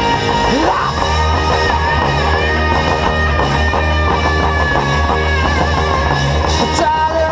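Live rock band playing an instrumental passage: electric guitar lead over bass guitar and drums. The guitar slides up about half a second in, then holds one long, wavering note.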